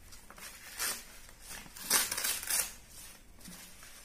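Paper gift bag crinkling and rustling as it is handled and pulled open, in several short bursts, loudest about two seconds in.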